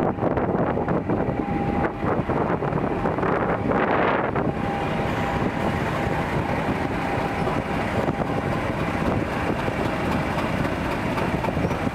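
Class 50 diesel locomotive 50 015 with its English Electric 16CSVT V16 engine running as it draws slowly past, a loud steady drone with a faint steady tone over it from about halfway in.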